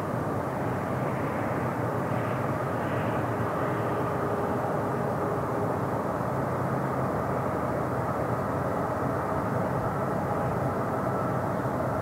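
Diesel locomotives of a freight train running under power across the river, a steady drone with a held hum.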